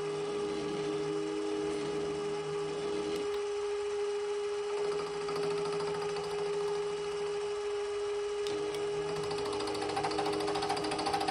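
Milling machine spindle and end mill cutting the side of a cast iron casting under power feed: a steady motor whine, with lower tones that drop out briefly twice. A little chatter and vibration come from the cutter working with a long overhang.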